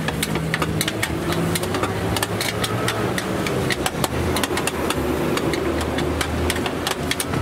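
Metal spatula clattering in a wok as noodles are stir-fried, in many quick sharp clicks, over the steady low hum of an idling engine.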